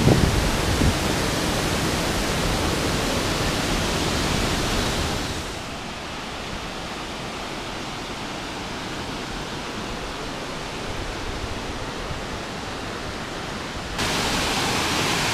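Waterfall and river cascades rushing in a steady hiss. About five seconds in it drops to a quieter, duller rush, and it jumps back louder near the end.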